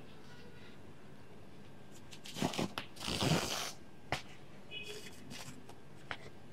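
Cotton crochet cord rustling and scraping as a handle is threaded and pulled through the stitches of a crocheted cotton bag: a few short rustles, the loudest about three seconds in, with two light clicks.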